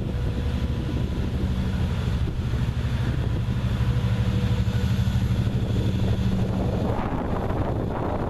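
Diesel engine of an approaching EMD DE30AC diesel-electric locomotive running, a steady low drone that builds to its loudest about halfway through and eases near the end.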